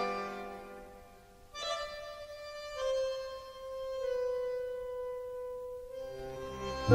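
Soft film-score music: a solo reed instrument plays a slow phrase of long held notes after the previous phrase fades out about a second in. Fuller, louder music swells in right at the end.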